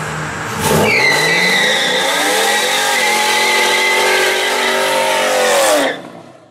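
Fourth-generation Pontiac Firebird's V8 doing a burnout: from a low idle it jumps to high revs about a second in, the pitch climbing and then holding, while the spinning rear tyres squeal steadily. The sound cuts off suddenly near the end.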